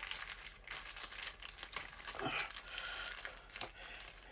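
Packaging crinkling and rustling in irregular bursts as the box contents are handled and rummaged through.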